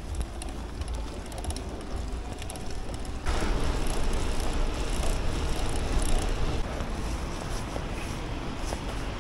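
Electric bicycle being ridden: steady rumbling road and riding noise, which gets louder about three seconds in.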